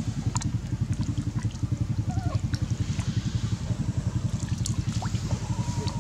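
A small engine running with a fast, even low throb, with light water splashing and clicks over it.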